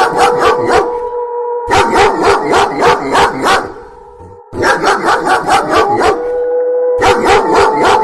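A dog barking rapidly and loudly, about seven barks a second in repeated runs, over a long steady held howl. The runs break off abruptly and start again, with a short lull about four seconds in.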